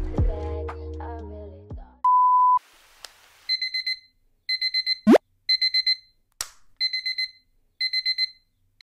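Tablet alarm beeping in quick groups of four high beeps, a group about every second, stopping near the end as it is switched off. Before it, background music fades out and a short steady beep sounds, and a quick rising swoosh cuts in about halfway through.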